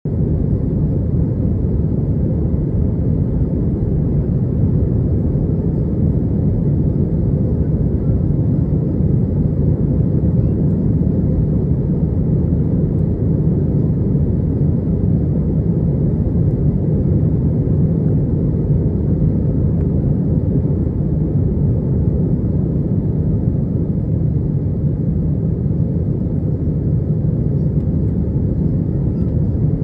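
Airliner's engines at climb power with rushing airflow, heard from inside the passenger cabin: a steady, even low rumble.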